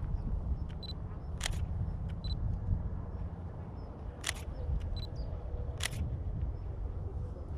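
Outdoor ambience with a steady low rumble, three sharp clicks about a second and a half, four seconds and six seconds in, and a few very short high chirps.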